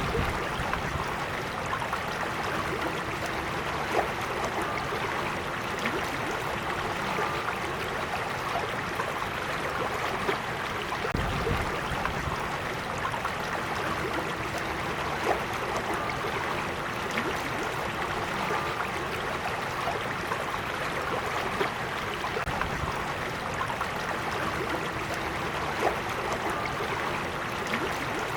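Small creek flowing steadily over rocks: a continuous rush and babble of water with a few sharper splashes. A brief low rumble comes about eleven seconds in.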